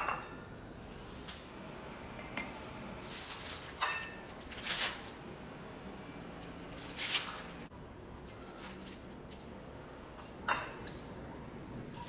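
Green vegetable stalks being handled, cut and moved into a ceramic plate: a few short, scattered rustling and crunching noises with a couple of light knocks, separated by stretches of quiet room tone.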